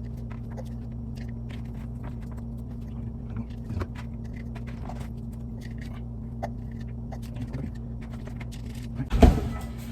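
Scattered small clicks and taps of kitchen food preparation over a steady low electrical hum, with one loud knock about nine seconds in.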